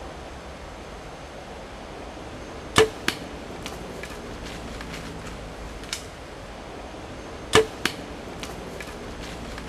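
Two bow shots about five seconds apart. Each is a sharp snap followed about a third of a second later by a fainter snap, over a steady hiss of background noise with a few faint clicks.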